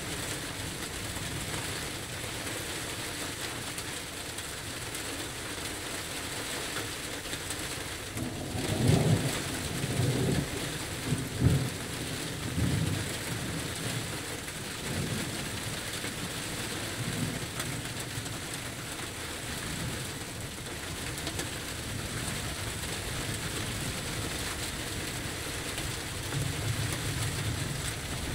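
Steady rain falling in the calmer tail of a thunderstorm, with low rolls of thunder about eight to thirteen seconds in, the loudest near eleven and a half seconds, and another rumble building near the end.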